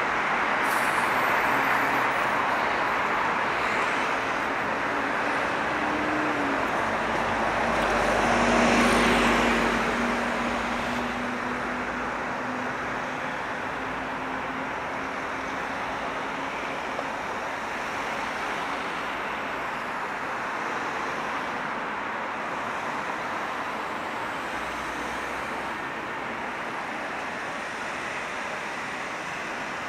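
Road traffic: cars running past. One vehicle swells up to pass close about eight or nine seconds in, with a low engine hum that fades over the following seconds.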